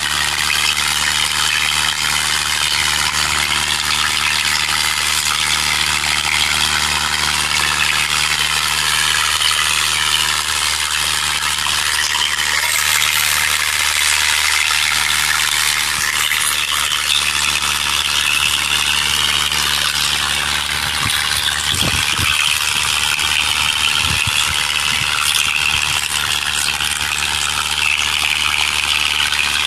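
Sonalika DI-750 III tractor's diesel engine running steadily under heavy load, holding one even pitch, as it drags two harrows through loose soil.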